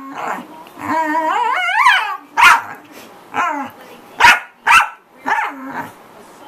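Corgi making a drawn-out, wavering howl that rises in pitch about a second in, then barking five times in short, sharp barks.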